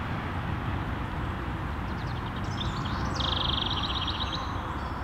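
A small bird chirping, then a fast trill from about three seconds in, over a steady outdoor background of rumble and hiss.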